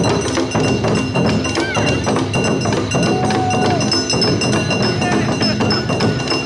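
Awa odori festival music: drums beating in a dense, steady rhythm with a ringing metal hand gong on top, and a short held note about halfway.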